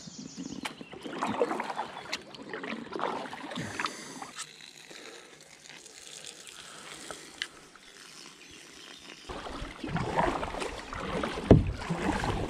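Kayak paddle strokes dipping and splashing in the water, a splash about every second. It is quieter in the middle and louder again in the last few seconds, with a low rumble under the splashes.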